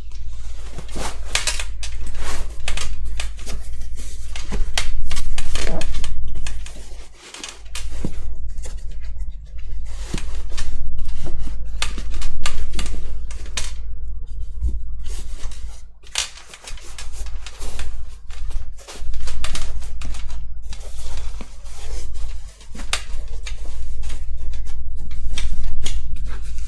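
Background music, over irregular rustling and scraping of foam and fabric as a foam insert is pushed and fitted into a backpack.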